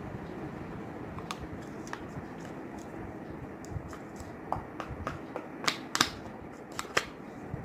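Sticky homemade slime of Fevicol glue and baking soda being mixed, giving scattered sharp clicks and pops, more of them in a quick cluster near the end, over a steady low hiss.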